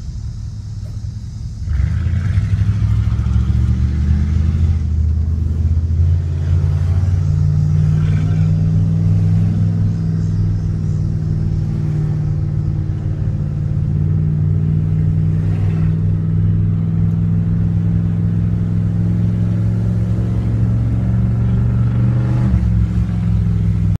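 1994 Chevrolet K1500 pickup's engine, heard from inside the cab, revved up about two seconds in and then held at a raised, fairly steady speed.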